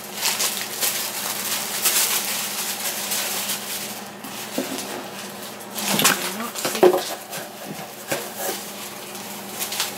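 Paper packaging rustling and crinkling as it is handled and opened, with a few light knocks on the table.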